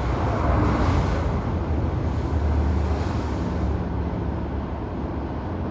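Steady rumbling background noise with a low hum, no speech.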